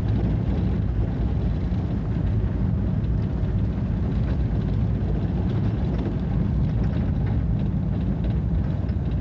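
A vehicle driving fast over a gravel desert plain: a steady low rumble of engine and tyres, with faint scattered ticks of grit.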